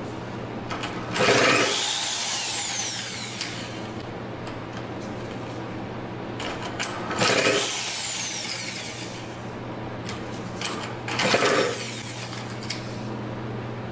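Corded electric drill spinning over the crankshaft of a Cobra CM50 50cc two-stroke engine in three bursts, its motor whine rising and then winding down each time; an attempt to drill-start the engine, which turns over without catching.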